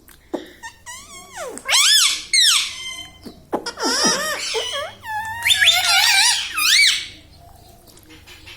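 Ring-necked parrot making a run of high, squeaky calls that slide up and down in pitch, stopping about seven seconds in.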